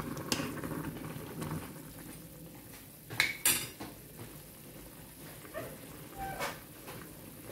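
A metal ladle stirring mushrooms in a stainless-steel pot of boiling broth, with two sharp metal clinks of the ladle on the pot about three seconds in. The broth keeps bubbling at a steady boil underneath.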